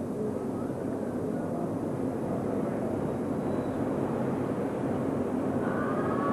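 Outdoor town ambience: a steady low rumble like distant road traffic, slowly growing louder, with a few faint higher sounds near the end.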